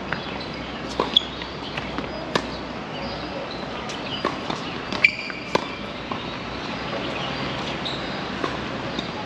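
Tennis balls struck by rackets and bouncing on the court: a string of sharp pops at irregular spacing, roughly one every second or so, over a steady background hiss.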